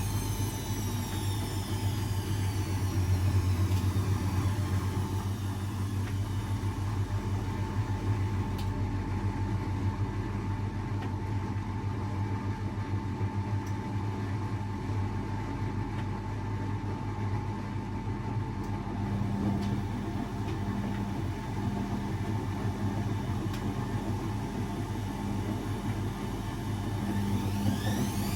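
Blomberg 240W washing machine running: the whine of its drum motor falls away as the drum slows in the first few seconds, and a steady low hum carries on while the drum rests. Near the end the motor whine rises again as the drum starts turning once more.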